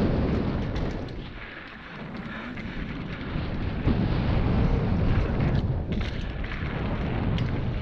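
Heavy wind buffeting on the microphone and mountain-bike tyres rolling over dirt on a fast trail descent, with scattered light clicks and rattles from the bike. The rumble swells and eases a couple of times.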